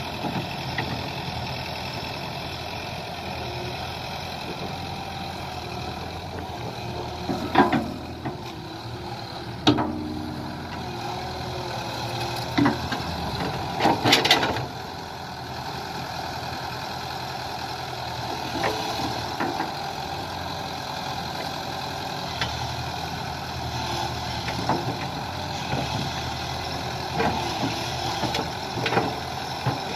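Kobelco SK120 hydraulic excavator's diesel engine running steadily as it digs and piles wet mud, with a brief whine just after the tenth second. Sharp clanks and knocks break in now and then, the loudest about seven and a half, ten and fourteen seconds in.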